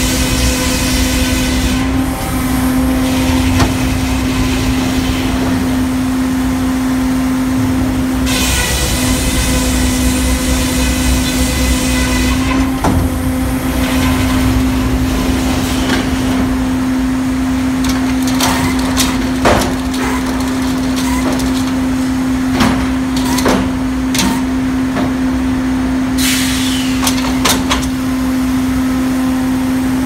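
Hurdle sawmill's circular head saw running with a steady hum and cutting through a beech log, with a hiss of sawing during the first couple of seconds and again from about a third of the way in for several seconds. After that comes a run of sharp metal clanks and knocks from the carriage and headblocks between cuts.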